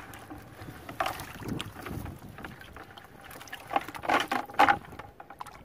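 Wet cast net shaken out over a bucket of water: irregular splashing and dripping as small bait fish drop into the bucket, with the loudest splashes about a second in and again around four seconds in.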